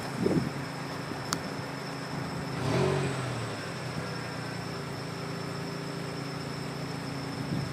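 Pickup truck engine running steadily with a brief rev about three seconds in, as the truck pulls on a rope tied to a partly cut tree to rip it out by the roots; a sharp click a little over a second in.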